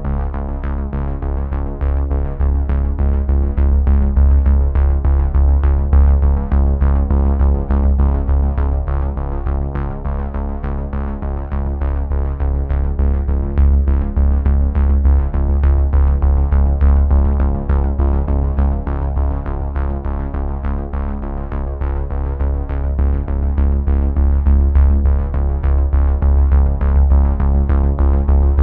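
Electronic background music: synthesizer chords over a heavy bass with a steady drum-machine beat.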